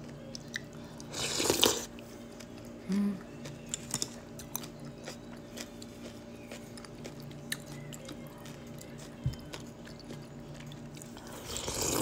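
Close-up eating sounds of a spoonful of acorn jelly in broth: a loud slurp about a second in and another at the end, with chewing and small mouth and spoon clicks between, and a short hummed 'mm' about three seconds in.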